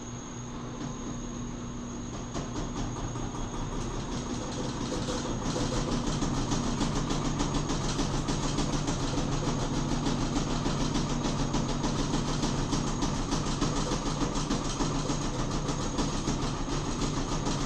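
Washing machine spinning up in its spin cycle: the drum's running sound grows louder over the first six seconds, then holds a steady hum with a fast, even pulsing from the machine shaking.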